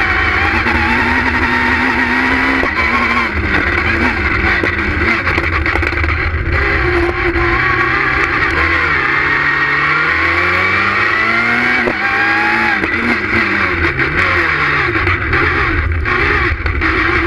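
Citroën Saxo S1600 rally car's 1.6-litre four-cylinder engine heard from inside the cabin, revving hard and changing up and down through the gears. The pitch climbs repeatedly and drops sharply at each shift or lift, with quick dips and blips in the last few seconds.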